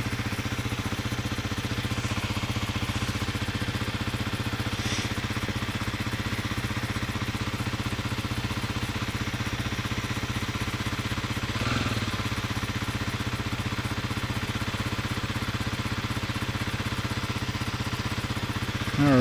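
2025 Kawasaki KLX 300's single-cylinder four-stroke engine idling steadily, run briefly after a fresh oil and filter change to circulate the new oil before the level is rechecked.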